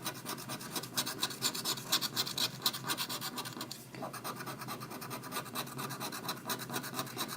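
Scratch-off lottery ticket being scratched in quick, repeated strokes, a dry scraping as the latex coating comes off the card.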